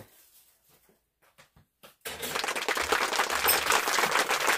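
A few faint clicks in near quiet, then about two seconds in a dense crackling rustle starts, lasts about two and a half seconds, and stops near the end.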